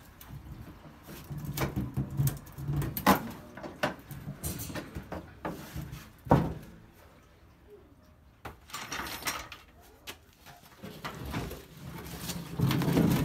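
A rusty steel fuel tank from a Volvo 240 knocking and scraping against the car's underbody as it is jiggled out from under the rear, with a sharp metal knock about six seconds in.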